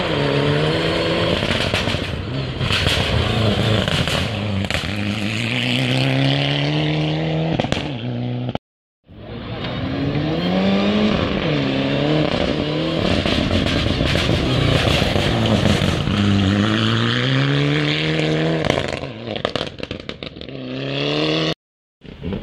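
Rally cars at full throttle on a gravel stage, engines climbing in pitch through the gears with short drops at each shift and lift, and loose gravel spraying and clattering. The sound breaks off twice for under half a second, about a third of the way in and near the end, where one car's run gives way to the next.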